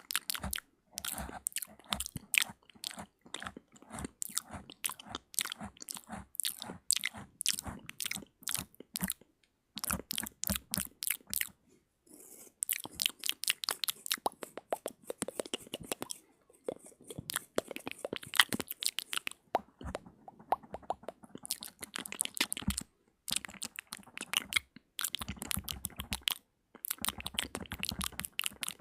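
Close-miked ASMR mouth sounds: rapid wet clicks and smacks of lips and tongue in runs of a few seconds, broken by brief pauses.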